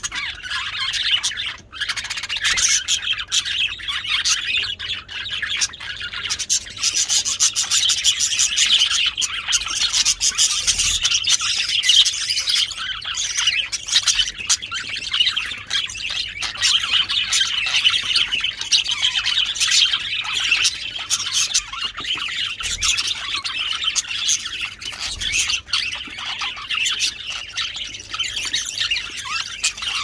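Budgerigars chattering: a continuous, dense stream of quick chirps and warbling.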